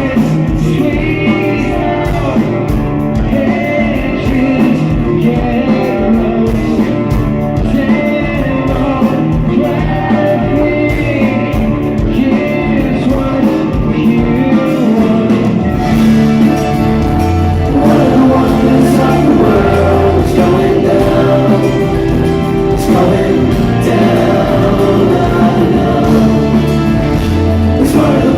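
Rock song played by a full band, guitars and bass with singing over them; the low end grows heavier about halfway through.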